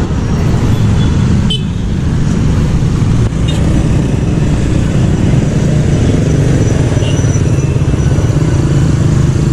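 Slow, congested road traffic: motorcycle and car engines running together in a steady low rumble.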